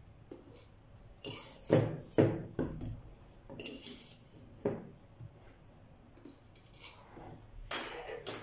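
Metal knife knocking and scraping against the neck of a plastic shampoo bottle as ground coffee is pushed in: a series of short knocks and scrapes, several in the first few seconds and a couple more near the end.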